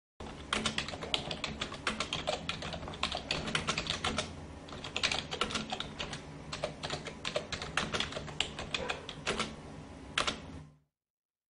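Computer keyboard typing sound effect: rapid, irregular key clicks that stop about a second before the end.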